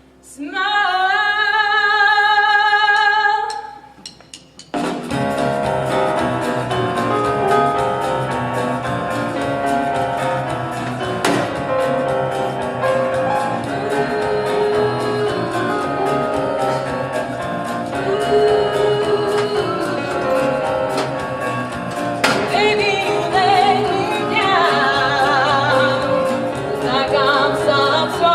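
Live musical-theatre song: a singer holds a long note with vibrato on the word "smile". A dense instrumental accompaniment comes in about five seconds in, and the singing comes back over it near the end.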